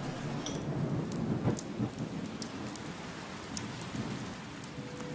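Steady rain, with single drops dripping off the roof eaves and landing as sharp ticks now and then. Soft music notes come in near the end.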